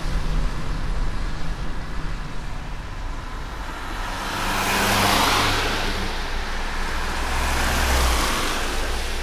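Steady rain with road traffic: vehicles pass twice on a wet road, their tyre hiss and engine rumble swelling and fading over the patter.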